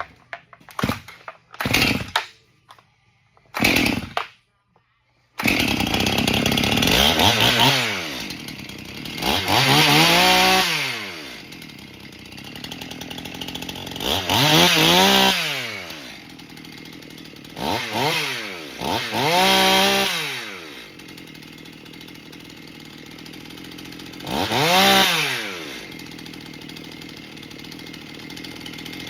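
Freshly rebuilt Stihl MS 291 two-stroke chainsaw engine: a few short bursts as it is pulled over, then about five seconds in it catches and runs, idling between about six blips of the throttle that rev it up and let it fall back.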